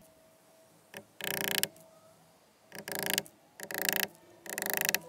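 Claw hammer driving galvanized roofing nails through a thin cement board strip into the wood frame: a regular series of ringing blows a little under a second apart, starting about a second in.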